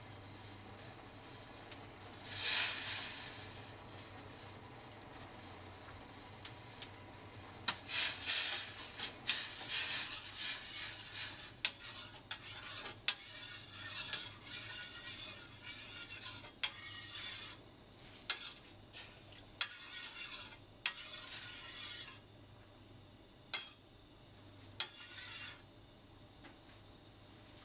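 Metal spoon stirring orange jelly liquid in a stainless steel saucepan, scraping and clinking against the pan's sides and bottom, from about eight seconds in until near the end. A short whoosh comes about two seconds in, before the stirring starts.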